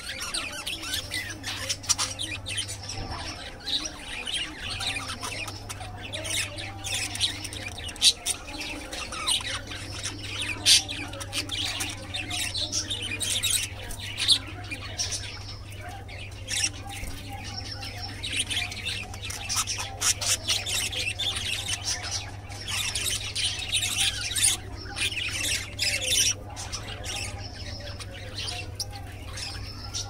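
Several budgerigars chattering continuously, a dense overlapping mix of quick chirps, warbles and squawks, louder in stretches. A steady low hum runs underneath.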